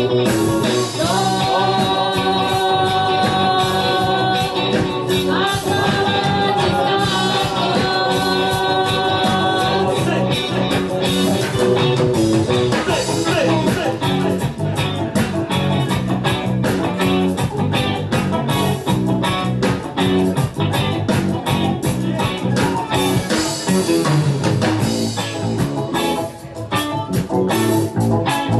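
Live reggae band playing: electric guitar, bass, keyboard and drum kit, with a woman's voice singing long held notes through the first third and the band carrying on without her afterwards.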